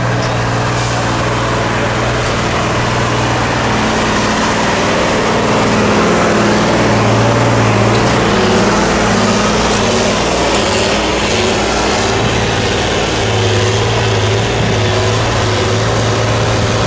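Tatra 815 off-road truck's air-cooled diesel engine running hard under load as the truck climbs a steep dirt slope. The engine note holds fairly steady, dipping and coming back a few times.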